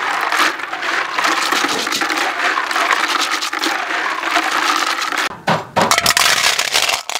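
Snail shells clacking and cracking as they are worked through, with a dense run of sharp clicks and a louder cluster of cracks near the end. This is typical of the tail tips of the shells being cut off before cooking.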